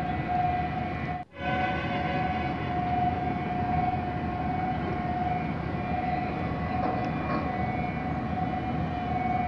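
Steady outdoor background: a constant high-pitched hum over a low, even rumbling noise, with a brief dropout about a second in.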